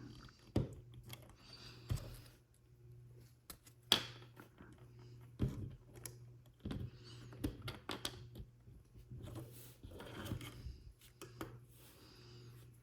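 Small plastic parts of a toy car kit being handled and pressed together: scattered light clicks and brief rustles, irregularly spaced, over a steady low hum.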